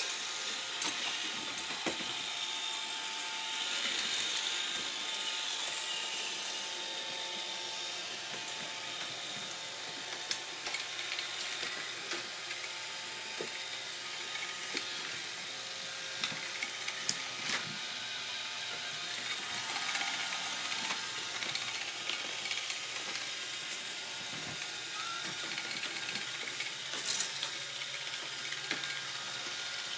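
Roomba robot vacuum running across the floor: a steady whirr of its motors and brushes with a constant whine, broken by scattered short clicks and ticks.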